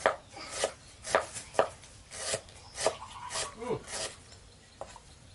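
A run of short, sharp knocks with some scraping, roughly two a second, dying away in the last second.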